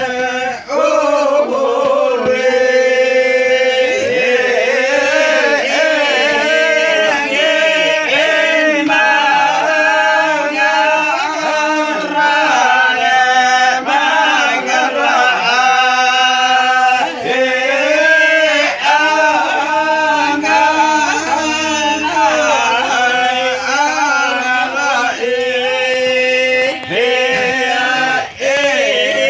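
A group of voices chanting a slow, winding melody, men's voices to the fore, over a steady low held note that runs underneath.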